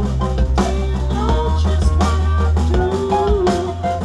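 Indie pop band playing live: singing over bass, guitar and drums.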